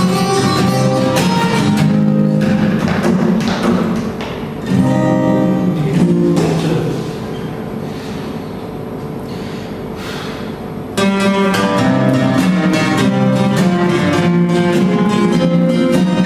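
Two acoustic guitars playing a melody together, with strummed chords and picked notes. The playing goes softer for a few seconds in the middle and comes back full.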